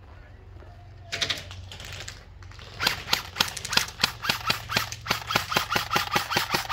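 M4-style airsoft rifle firing at close range: a short rattling burst about a second in, then a steady run of sharp shots at about five a second until the end.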